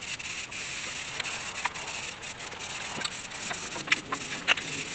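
Aerosol spray-paint can hissing in a steady spray, with a few light clicks and taps.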